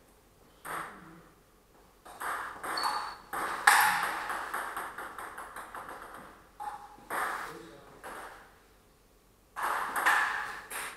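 Table tennis ball being hit back and forth in a rally: sharp clicks of the ball off the bats and the table, in runs with short pauses between points, each hit followed by a short room echo.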